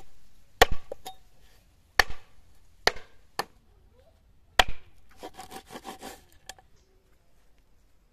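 Heavy cleaver chopping chicken feet and a chicken head on a wooden block: six sharp chops at uneven spacing, then a brief run of quick light knocks and scrapes on the board.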